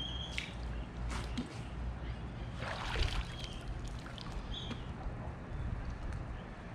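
Pool water splashing and trickling as a test-kit vial is filled from the pool and the excess tipped back out, with the loudest splash about three seconds in.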